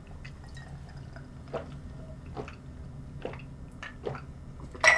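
A person drinking from a glass: faint wet swallowing gulps about once a second. A sharper, louder knock comes just before the end.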